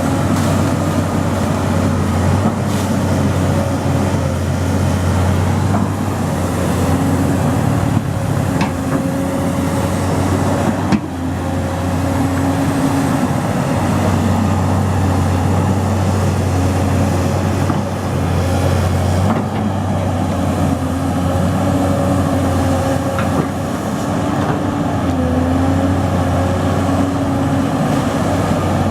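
Excavator's diesel engine running steadily, its pitch dipping and rising a little now and then as it works. A sharp metallic knock comes about eleven seconds in.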